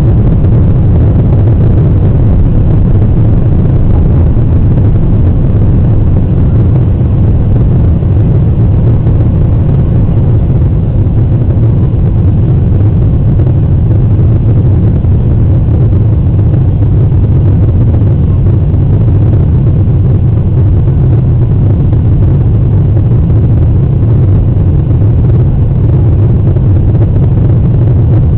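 Boeing 737-800's CFM56-7B turbofan engines at high power, a loud, steady, deep roar heard from inside the passenger cabin over the wing, through the end of the takeoff roll and into the climb-out.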